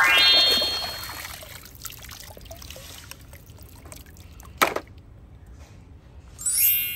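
Water splashing and trickling as plastic toy guns are swished in muddy water and lifted out dripping, with a sharp click about four and a half seconds in. A loud rising tone fades out at the very start, and a bright chime begins near the end.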